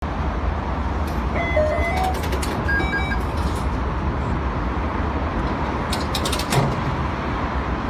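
Steady low rumble and noise, like a vehicle running, with a few brief high tones in the first few seconds and short clicks about two and six seconds in.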